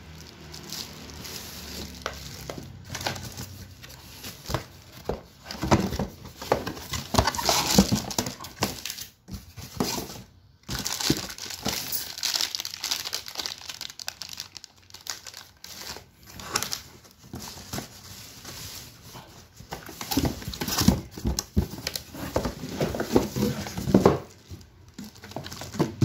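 Clear plastic packaging bags crinkling and rustling as wrapped vacuum cleaner accessories are handled and unpacked. The crinkling comes in irregular bursts, with a brief lull about ten seconds in.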